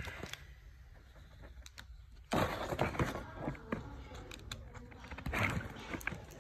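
Cellophane wrap on a cardboard product box crinkling and rustling as the box is handled and the wrap's tear strip is pulled. The rustling starts suddenly a little over two seconds in, after a quiet start.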